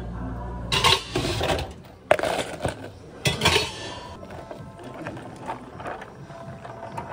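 Bubble tea being made at a cafe counter: three short clattering bursts about a second apart, then quieter clinks, over background music.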